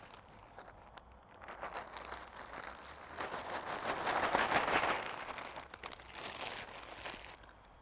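Rough compost, still holding bits of leaves and twigs, rustling and crunching as it is tipped and worked onto a garden bed. It swells to its loudest about three to five seconds in, then dies down near the end.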